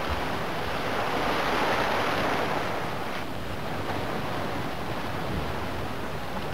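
Ocean surf: a steady rush of waves washing onto a beach, swelling a little and then easing.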